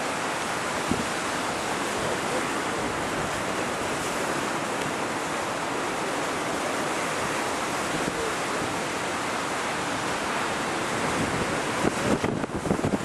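Strong wind rushing over the microphone with rough, choppy sea water, a steady noise of wind and waves. About a second before the end, gusts buffet the microphone harder and more unevenly.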